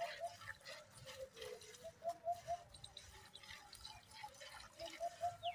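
Milk squirting from a cow's teats into a steel pail during hand milking: short streams in quick rhythmic runs of several squirts.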